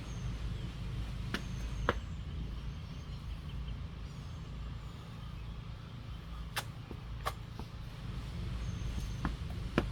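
Hands and feet knocking against the ground during step-out burpees, in pairs about half a second apart, three times, over a steady low rumble.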